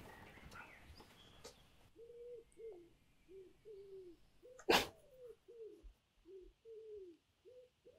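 A pigeon cooing in a quick run of short, low notes, about two a second, with one sharp click about halfway through.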